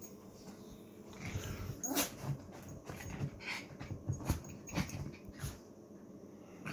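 Small chihuahua puppy making a string of short, irregular whining sounds, with a rising whine about two seconds in.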